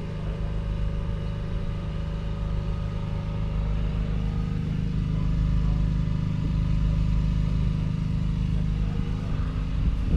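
Valtra Q305 tractor's 7.4-litre six-cylinder diesel engine idling steadily, a little louder in the middle.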